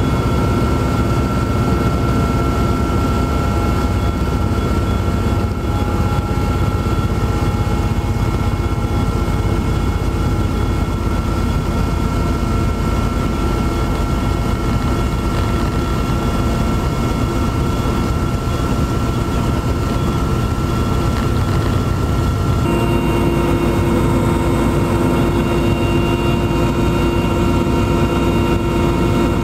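Steady drone of an aircraft's engine and propeller in flight, heard from inside the cabin. Its held tones change near the end.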